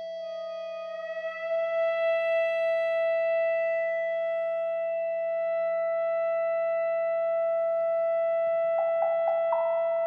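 Contemporary chamber music for alto saxophone, electric guitar, vibraphone and piano: a quiet, serene passage of long held tones that swell a little about a second in, with a few short struck notes near the end.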